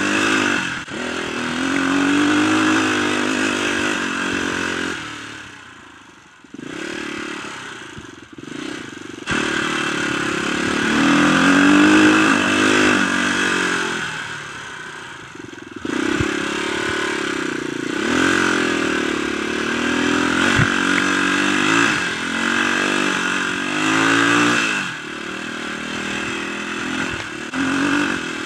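Dirt bike engine pulling along a rough trail, revving up and easing off over and over as the throttle is worked, with a lull about five to nine seconds in. Two sharp knocks come later on.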